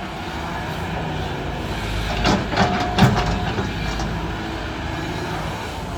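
Six-wheel dump truck running with a steady rumble and rattling, with a burst of clanking knocks about two to three seconds in.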